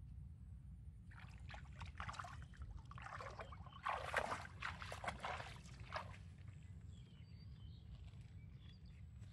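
Water splashing and sloshing as a person wades through shallow pond water: a run of uneven splashes from about a second in, loudest about four seconds in, dying away after about six seconds as he steps out onto the bank.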